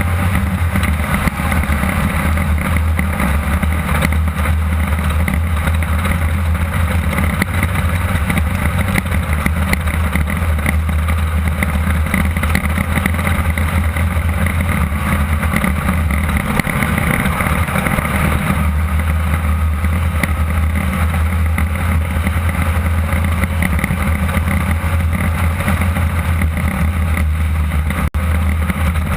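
Class 2-1600 off-road race car's 1600 cc air-cooled VW engine running hard at a fairly steady pitch, heard from inside the car, with a momentary break in the sound about a second before the end.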